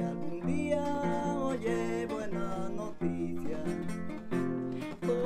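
Acoustic guitar playing chords with a melody line over them: an instrumental passage between the sung lines of a slow song.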